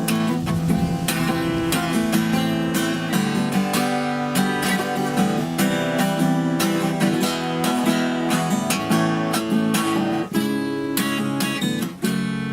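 Yamaha steel-string acoustic guitar, newly restrung over its reglued headstock, being played in strummed chords and picked notes, with many quick note attacks and brief dips in the playing about ten and twelve seconds in.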